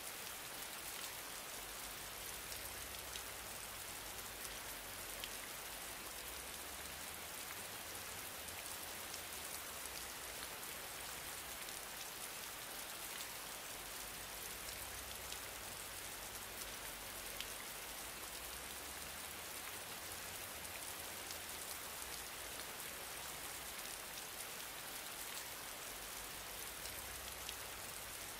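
Steady hiss, strongest in the highs, with faint scattered ticks throughout, in the manner of rain on a surface.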